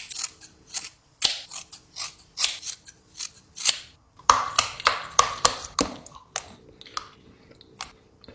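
Close-up crunching as a hard novelty snack shaped like scissors is bitten and chewed: irregular sharp crunches, loudest around the middle, thinning to a few softer ones near the end.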